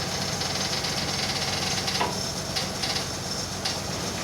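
Heavy machinery engine running steadily, with a metallic clatter over the drone and a few short knocks in the second half.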